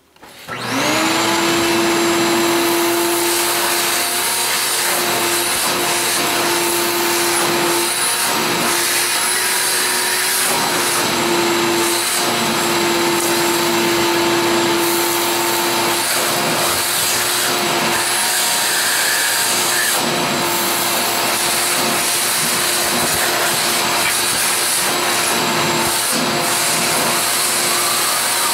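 Vacuum cleaner motor spinning up about half a second in, then running steadily with a steady whine, used to suck concrete dust out of freshly drilled anchor holes in the floor.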